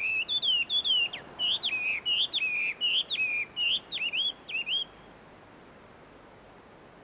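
Chinese hwamei (melodious laughingthrush) singing a fast series of loud, clear whistled notes, each sliding down in pitch, about three a second. The song stops about five seconds in.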